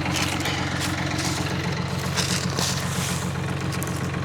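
Tractor diesel engine idling steadily, with a few brief rustling noises over it.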